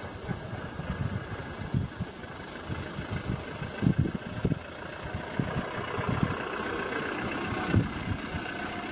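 Safari vehicle engine idling steadily, with irregular low thumps on the microphone.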